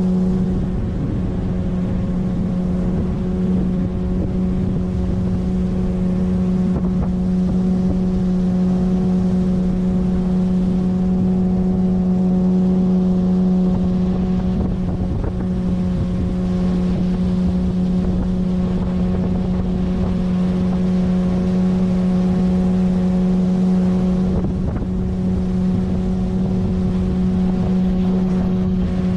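A 9.8 hp outboard motor pushing an inflatable PVC boat, running at a steady, unchanging speed with one constant pitched drone. Wind buffets the microphone.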